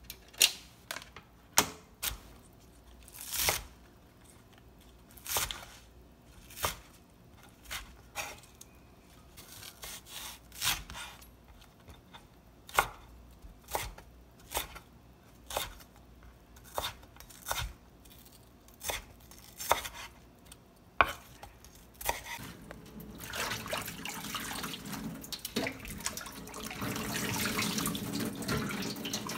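Kitchen knife chopping green onions on a wooden cutting board, single sharp chops roughly a second apart. In the last third this gives way to hands swishing and splashing salted napa cabbage leaves in a basin of water, growing louder.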